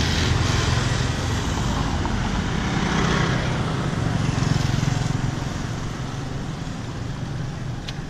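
Street traffic: motor scooter and small vehicle engines running steadily with a low hum, easing off a little toward the end.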